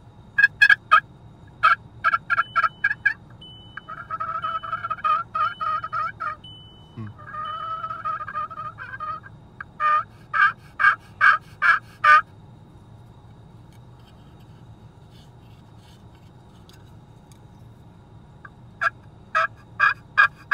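A 'triple threat' pot-style turkey call with a tuner on the bottom, worked with a wooden striker. It makes runs of quick hen yelps, two longer drawn-out notes in the first half, more yelps, a pause, then a last run of yelps near the end.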